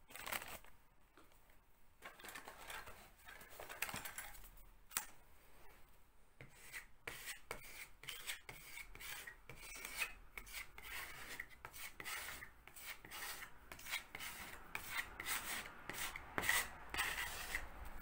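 A small filler knife scraping and spreading filler across a cracked plaster wall: a run of short, irregular scraping strokes that come thicker in the second half.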